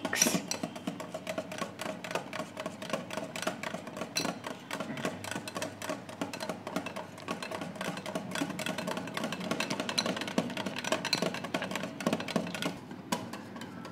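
Stainless wire balloon whisk beating cream into mango puree in a glass bowl: quick, steady clicking of the wire tines against the glass, stopping about a second before the end.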